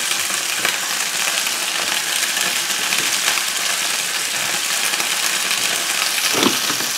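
Rolled beef slices sizzling as they fry in a pan: a steady crackling hiss. A brief knock sounds near the end.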